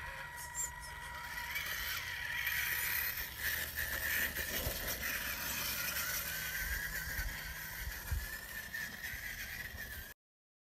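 Radio-controlled scale crawler truck driving over rock and sand: its small electric motor and geared drivetrain whine, the pitch wavering up and down with the throttle. The sound cuts out to silence shortly before the end.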